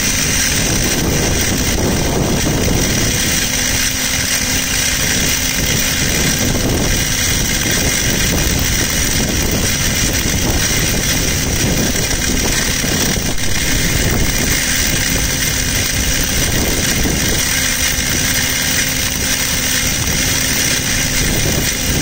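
Microduct fiber cable blowing machine running: a steady, unbroken machine noise at a constant level.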